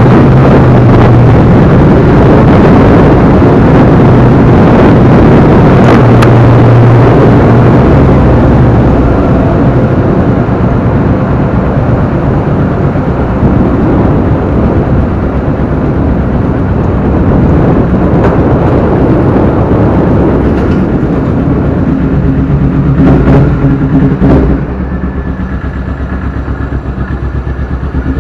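Motorcycle engine running at low speed, close to the microphone, with a dense, steady drone. About 25 s in it eases off and settles into a slower, quieter run with evenly spaced firing pulses.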